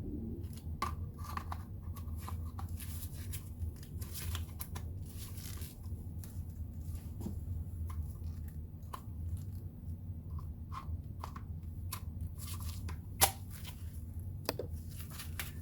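Plastic rustling and scraping with many small clicks as a battery pack is handled and worked onto a cordless impact wrench's battery shoe, which is not a smooth fit. One sharp, louder click about thirteen seconds in.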